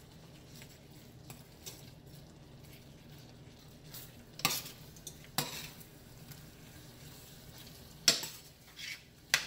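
A metal spoon stirring chunky curry chicken stew and vegetables in a stainless steel pan, over a steady faint sizzle. A few sharp clinks of the spoon against the pan come through, the loudest near the end.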